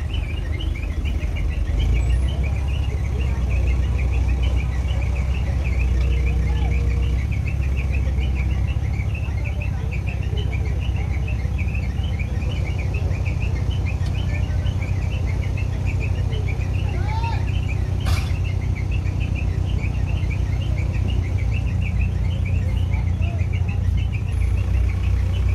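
Steady low rumble of a hydra crane's diesel engine running, with small birds chirping continuously over it. There is one sharp click about two-thirds of the way through.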